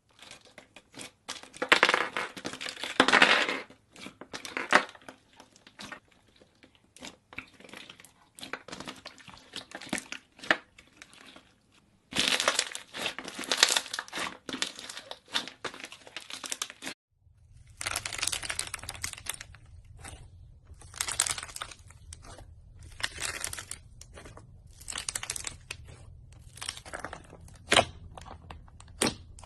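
Slime being squeezed and stretched by hand, giving dense runs of crackling, popping clicks.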